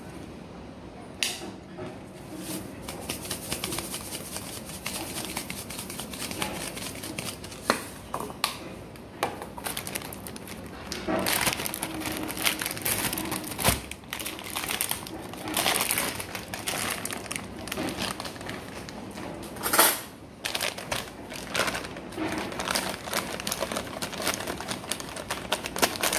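Kitchen handling sounds: seasoning containers being picked up and set down, and a plastic bag rustling as a spoon goes into it, in irregular clicks, knocks and rustles.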